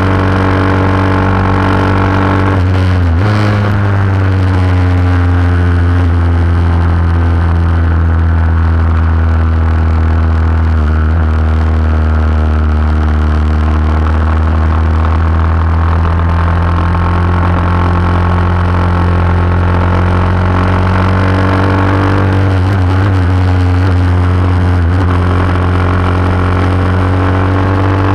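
Vintage lightweight superbike's racing engine heard from on board at speed on track. The engine note changes abruptly about three seconds in, falls slowly through the long turn, and climbs again near the end.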